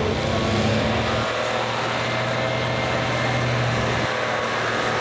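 Modified Dodge Ram pickup's Cummins turbo-diesel engine running hard under load while pulling a weight-transfer sled. A steady, loud drone whose pitch shifts about a second in and again near the end.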